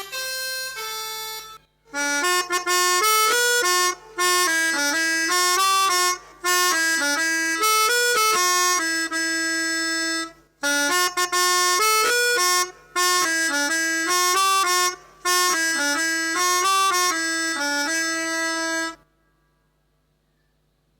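Pianika (melodica) playing a telolet basuri bus-horn melody in several short phrases with brief breaks, stopping about two seconds before the end.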